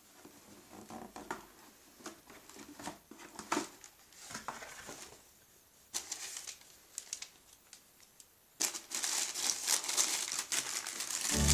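Hands handling a cardboard shoebox and rustling the tissue paper inside it, with scattered crinkles and light taps. The crinkling turns denser and louder about two-thirds of the way through as the paper is pulled back.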